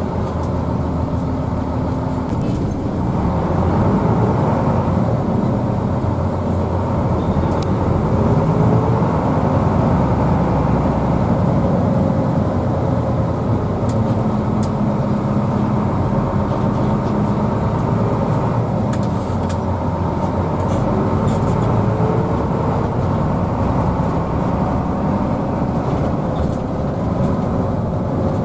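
Hino AK bus's diesel engine running under way with road noise, its note drifting up and down a little.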